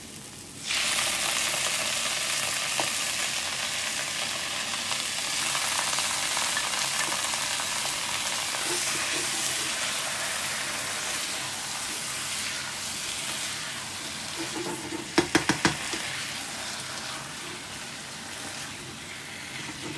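A pan of fried onions, chicken and spices sizzles loudly as tomatoes go in: the sizzle starts suddenly less than a second in, then holds steady and slowly eases. There are a few quick clatters from stirring about fifteen seconds in.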